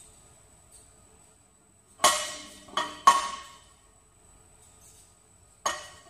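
Loaded barbell clanking as it is gripped in the deadlift setup: four sharp metal knocks with a short ringing tail, three close together about two seconds in and one more near the end.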